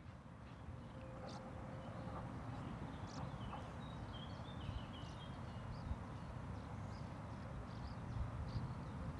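Faint outdoor park ambience, fading in at the start: a low steady rumble with small birds chirping now and then and a few light clicks.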